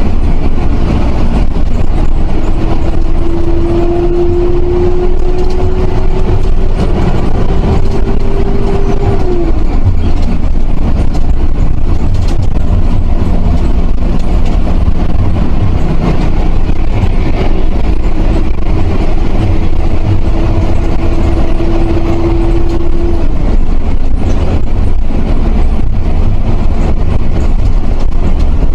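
Intercity bus under way, heard from inside: a loud, steady engine and road rumble, with a whine that rises slowly in pitch twice, for about six seconds each time.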